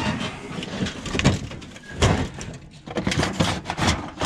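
Sheet-metal body of an old kitchen stove clanking and scraping as it is handled and turned over on the ground, with a string of knocks and clatters that bunch up near the end.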